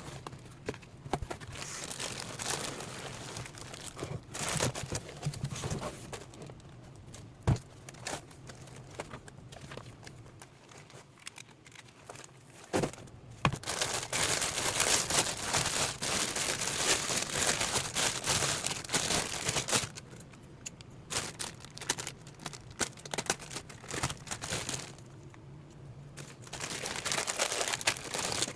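Crinkling and rustling, full of fine crackles and a few sharper clicks, like material being crumpled and handled. It is loudest in a long stretch in the middle, eases off for a few seconds, then picks up again near the end.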